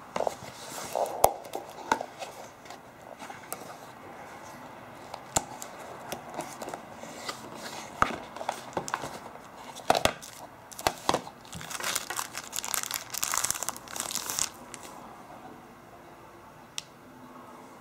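Cardboard phone box and the phone's clear plastic wrapping being handled by hand: scattered taps, scrapes and rustles, with a couple of seconds of plastic crinkling a little past the middle, then quieter handling with a single click near the end.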